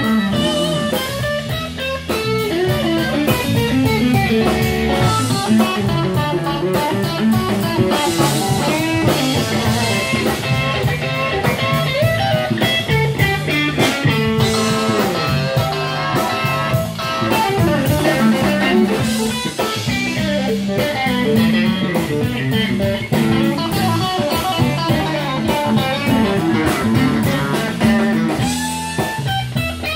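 Live blues band playing an instrumental section: electric guitar lead lines over a second electric guitar, bass guitar and drum kit, with a steady repeating bass pattern underneath.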